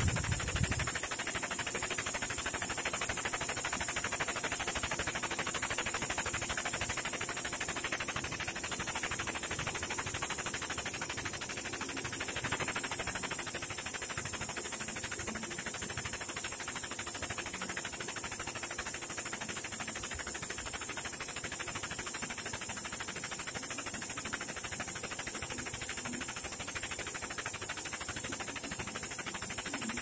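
Homemade 50-ton hydraulic press running steadily under load, with an even mechanical noise, as it forces a rust-seized packer wheel down its shaft.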